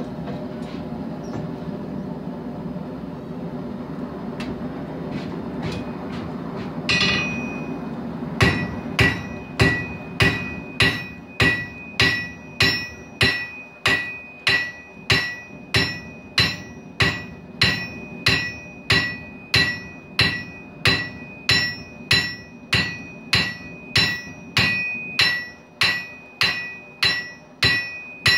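A steady low rush from the forge running, then about seven seconds in a first hammer blow. From there a blacksmith's hammer strikes hot steel on an anvil at an even pace, about three blows every two seconds, each blow leaving the anvil ringing with a high tone.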